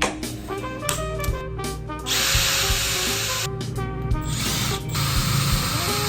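Power drill running in two bursts of about a second and a half each, drilling holes for rivets in aluminum flat bar, with music playing underneath.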